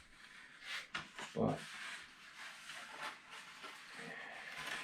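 Foamboard model-plane parts being handled on a work table: light rustling and rubbing with a few soft clicks.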